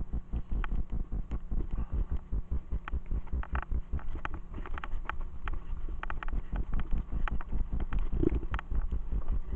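Mountain bike riding over a dirt forest trail: a continuous low rumble with dense, irregular rattling clicks from the bike jolting over the ground.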